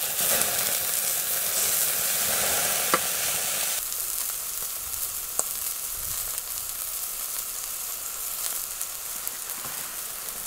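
New York strip steaks sizzling in a hot pan over a wood-fired Firebox stove, a steady frying hiss with a couple of sharp ticks. The sizzle drops noticeably about four seconds in.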